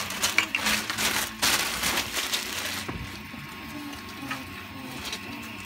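Clear plastic bag rustling and crinkling as hands rummage inside it. It is loudest in the first two seconds or so, then settles to quieter handling noises.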